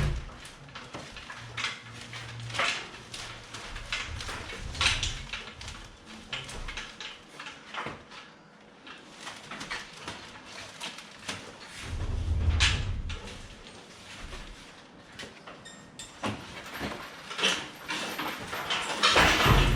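Irregular knocks, clicks and creaks of a heavy lathe being worked free and lifted off its shipping pallet, with a low rumble about twelve seconds in and again near the end.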